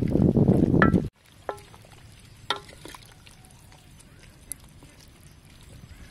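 Wind rumbling on the microphone for about the first second, cutting off abruptly. Then a wooden spoon stirring bok choy and pork ribs in a simmering pot of soup, with light knocks and two short animal calls.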